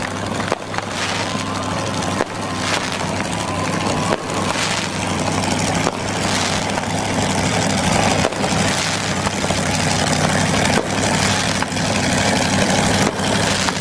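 Peacemaker wheelstander truck's engine running steadily under a loud rushing noise, with a few sharp pops scattered through.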